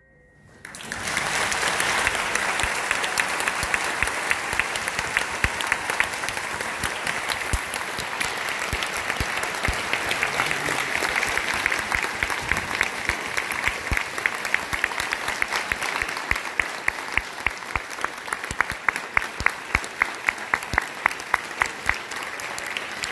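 Audience applauding: dense, even clapping that starts about half a second in and carries on, with sharp close claps in a steady beat standing out over it in the last few seconds.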